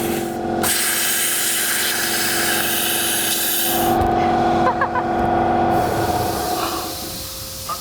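Pneumatic tool running on compressed air: a loud, steady hiss of air with a whine underneath. The pitch of the whine shifts about four seconds in, and the sound tapers off over the last two seconds.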